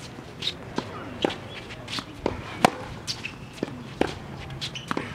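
Tennis rally on an outdoor hard court: sharp pops of the ball coming off racket strings and bouncing on the court, several times, the loudest about halfway through, with quick footsteps and short shoe squeaks in between.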